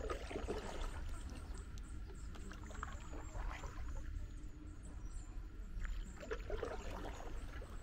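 Kayak paddle strokes in calm river water: a splash and drips from the blade about every three seconds, three times, over a steady low rumble.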